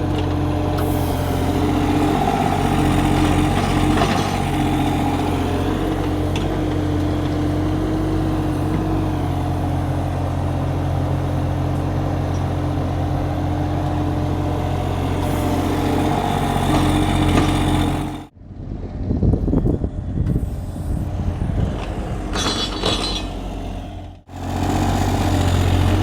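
Kubota U30 mini excavator's diesel engine running steadily while it digs. About 18 seconds in, the sound cuts to a quieter stretch of irregular clatter and knocks for about six seconds, then the steady engine running returns.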